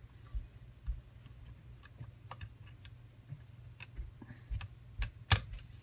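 Hook pick working the pins of a pin-tumbler lock cylinder under tension: scattered small metallic clicks and ticks, with one sharper click about five seconds in.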